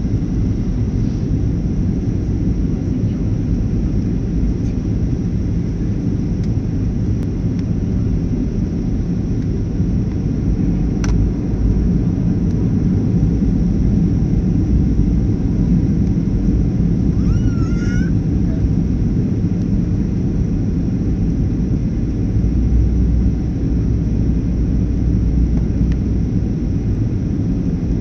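Steady low rumble of a Boeing airliner's jet engines and rushing airflow, heard from inside the passenger cabin on approach to landing.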